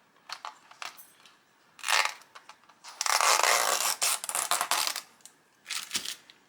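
Small plastic figure parts and their packaging being handled: a few light clicks, then a dense rustle of packaging for about two seconds in the middle, and another short rustle near the end.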